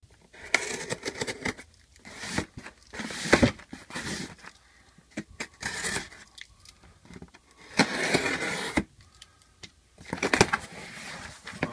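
Cardboard shipping box being cut open: packing tape slit with a small blade and pulled off, with cardboard scraping and rustling in irregular bursts and a few sharp clicks.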